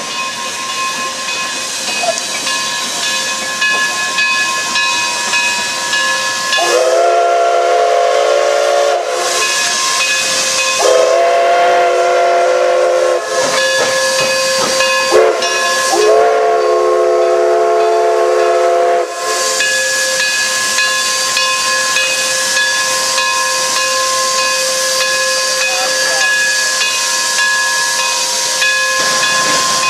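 Durango & Silverton steam locomotive No. 482, a K-36 Mikado, hissing steam steadily while its chime whistle sounds three long blasts, starting about seven, eleven and sixteen seconds in.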